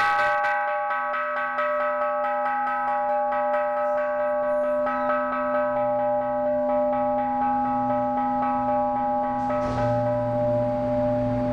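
Bronze hanging temple bell (kanshō) ringing on after a wooden-mallet strike: a sustained, pulsing hum of several tones, the higher ones slowly dying away while the low hum holds. A soft rushing noise with a low rumble comes in under it near the end.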